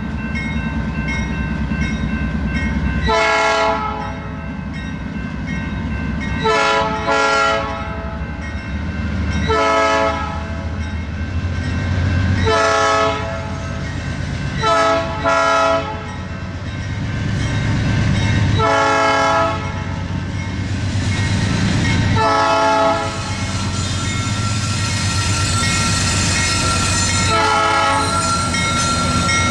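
A new-cast Nathan P3 three-chime locomotive air horn sounds about ten blasts, long ones and short pairs, spaced every two to four seconds. Under the blasts runs the steady low rumble of the passing train.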